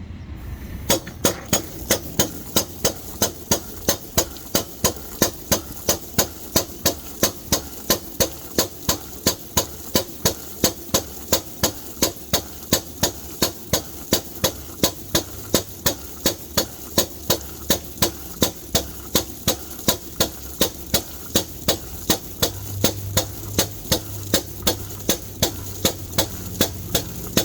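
Freshly overhauled RHINO RN-25BA443ABC machine on a test run: a steady engine hum with loud, evenly spaced knocks about twice a second, starting about a second in.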